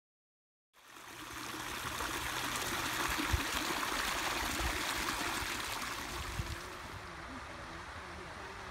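Hot-spring runoff water streaming and trickling over mineral terraces, a steady rush that fades in about a second in and drops quieter near the end.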